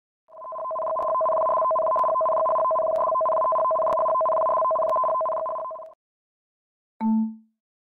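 Electronic tsunami-warning alert tone: two steady pitched tones sounding together for about five and a half seconds, then cutting off. About a second later comes one short, lower chime that fades quickly.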